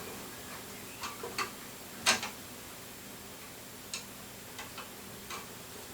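Scattered small clicks and taps of a hard drive, screw and screwdriver being worked into a PC case's drive bay, the sharpest click about two seconds in.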